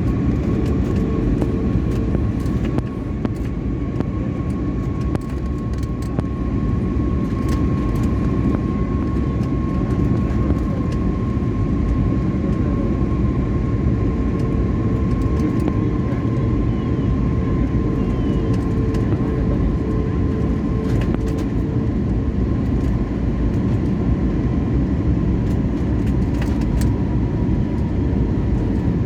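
Jet airliner landing: a steady deep rumble of engines and rushing air, with a thin whine that sinks slightly in pitch and scattered light clicks.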